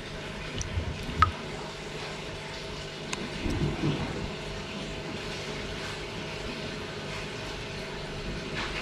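A steady low hum with small handling noises. About a second in there is one sharp metallic click, and a fainter one about three seconds in, from scissors being worked at the gill cover of a Jardini arowana during a gill-trimming operation.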